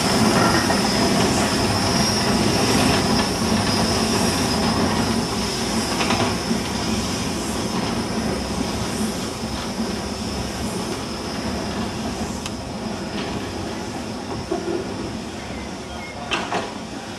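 Snowdon Mountain Railway steam locomotive and its carriage moving slowly over the yard track, with a rumbling rattle and a steady high-pitched wheel squeal. It grows fainter as the train moves away.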